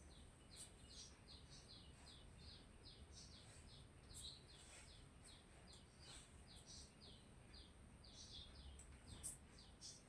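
Near silence, with a small bird chirping faintly in the background: a steady run of short, high chirps, about three a second. A thin, steady high whine sits underneath.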